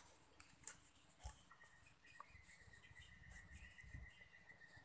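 Near silence: faint light clicks and rustles of hands pressing a homemade paper gasket into place on a generator engine. A thin, steady high tone comes in faintly about one and a half seconds in.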